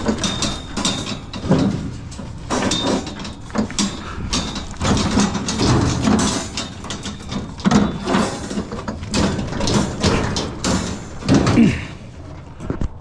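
Scrap metal being handled, with irregular clanking, rattling and scraping as the pieces knock and catch against each other.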